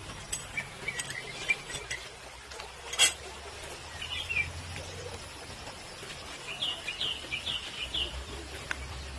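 Small birds chirping in short calls, with a quick run of chirps late on, and a single sharp click about three seconds in.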